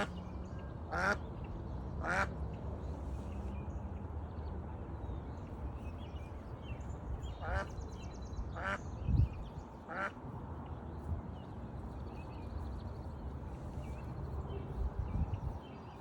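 Mallard quacking: three quacks about a second apart at the start, then three more between about seven and ten seconds in.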